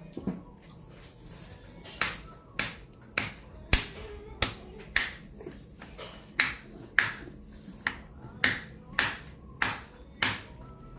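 A regular series of sharp knocks, a little under two a second, beginning about two seconds in, over a steady high-pitched insect trill.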